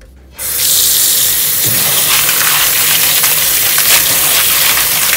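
Kitchen faucet running into a plastic colander of dry pinto beans as hands stir them to rinse them, a steady gush of water that comes on suddenly about half a second in.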